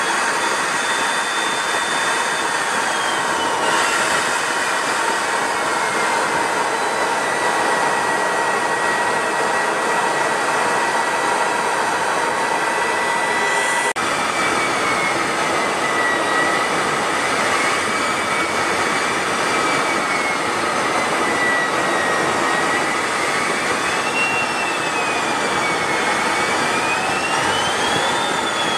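Fighter jet's turbofan engine running, a steady noise with a turbine whine that falls in pitch over the first several seconds, holds, then wavers and climbs again near the end. A brief break about halfway through, where the footage cuts.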